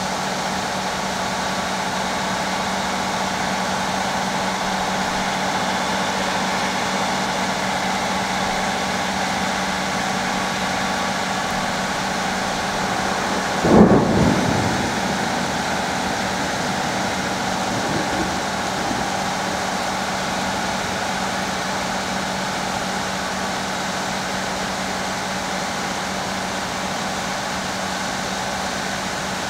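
Thunderstorm: a steady hiss throughout, and a single loud clap of thunder about halfway through that dies away over a second or two.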